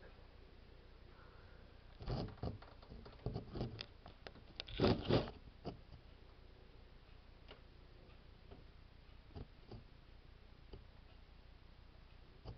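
A run of sharp clicks and knocks about two to six seconds in, loudest around five seconds, as the camera is handled and repositioned against the tank, followed by a few faint isolated clicks.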